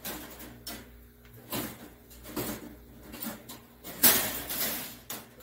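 Several short knocks and rattles of a wire rabbit cage, with the loudest clatter about four seconds in.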